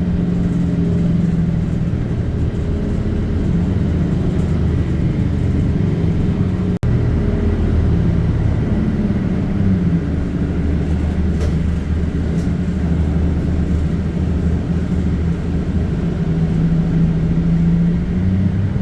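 Shuttle bus engine and road noise heard from inside the cabin: a steady low drone whose pitch shifts a little as the bus drives. It cuts out for an instant about seven seconds in.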